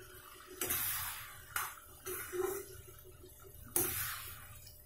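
Metal spoon stirring thick chicken curry in a steel kadai: three wet, sloshing scrapes, the first about half a second in, the next a second later, and the loudest near the end.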